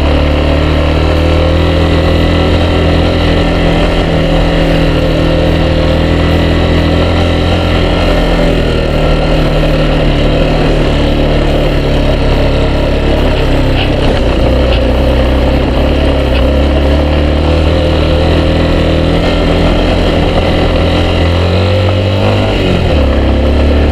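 A Yamaha XTZ 250 Lander's single-cylinder four-stroke engine running steadily on the move. Its note steps down and back up a few times as the throttle changes, under a constant rush of wind noise.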